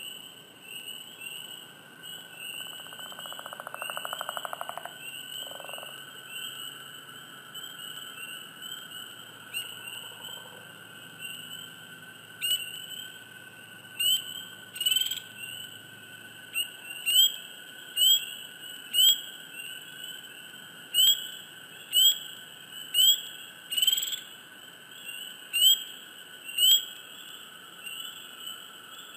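Spring peepers calling in a chorus, many short rising peeps, with one close peeper calling loudly about once a second from about twelve seconds in. A lower pulsed trill sounds for a few seconds near the start, over a steady high drone from the rest of the chorus.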